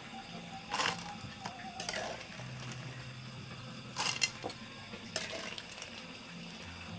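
A few scattered knocks and clinks of a cooking pot and utensils, with a faint steady hum underneath.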